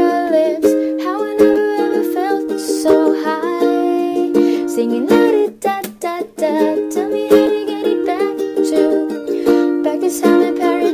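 Background music from a pop song with ukulele.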